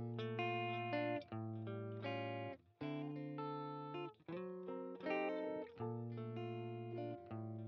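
Background music: guitar chords plucked one after another, each ringing out and fading before the next.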